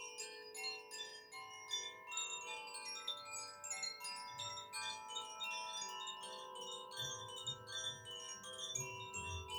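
Hand-held Koshi chimes being gently swung and turned, the clapper striking the tuned rods inside the bamboo tube. The result is a continuous, dense tinkling of many overlapping ringing tones.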